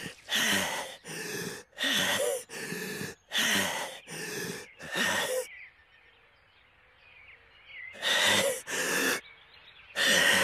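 Heavy panting voiced by an anime character, the exhausted young swordsman catching his breath: about seven hard, gasping breaths in quick succession, a pause of a couple of seconds with only faint background, then a few more gasps near the end.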